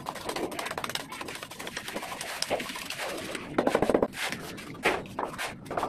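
Steel hand trowel scraping and tapping wet concrete, scooping it from a metal pan and working it into place, with many short scrapes and clicks. A louder, rougher scrape comes about three and a half seconds in.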